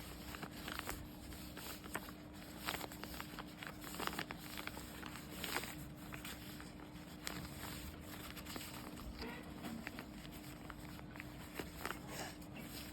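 Paper being folded and creased by hand: irregular soft rustles and crinkles over a faint steady hum.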